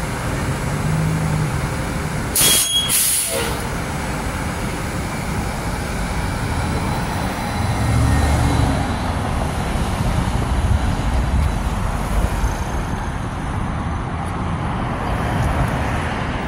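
New Flyer battery-electric city bus departing a stop: a short, loud hiss of released air about two and a half seconds in as the doors close and the brakes release, then the low whir of the electric drive and tyres as it pulls away, over steady street traffic.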